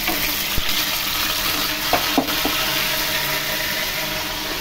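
Wet ground green masala paste sizzling and spitting as it goes into hot oil with browned onions and whole spices in a metal pot. There are a few light knocks of a utensil on the pot, about half a second in and twice around two seconds in.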